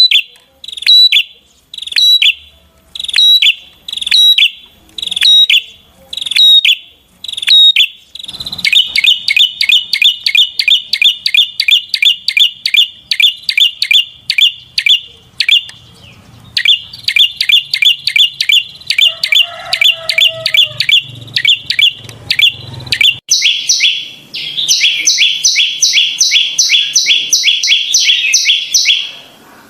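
Prinia (perenjak) singing. A sharp high note repeats about once a second, then from about eight seconds in a fast run of high chirps comes several times a second. The run breaks briefly twice and turns denser near the end.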